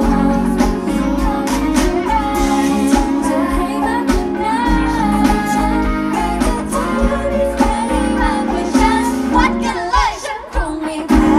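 A female singer singing a pop song live into a microphone over loud amplified backing music with a steady beat. About ten seconds in, the beat and bass drop out briefly before the full music comes back in.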